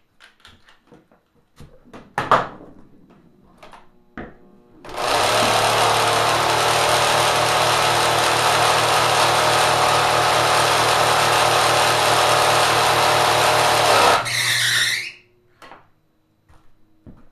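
Kenmore sewing machine, re-powered with a 3/4 hp motor, running flat out with a loud, dense mechanical clatter for about nine seconds, then spinning down with a falling whine. A few clicks and knocks of handling come before it starts.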